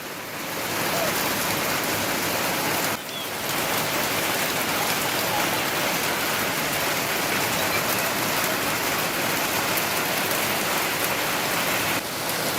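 Steady rain falling, an even hiss with a brief dip about three seconds in.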